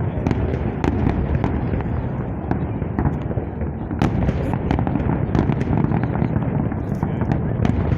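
Fireworks salute bursting overhead: a continuous rumble of overlapping bangs with frequent, irregular sharp cracks.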